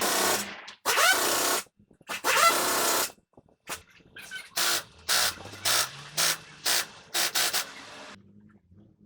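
A series of hissing bursts: three longer ones of about a second each at the start, then shorter ones about two a second, ending about a second before the end.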